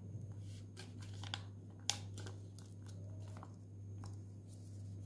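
Small paper vanilla sachet being torn open and crinkled by hand, a few short crackles and one sharp tick about two seconds in, over a steady low hum.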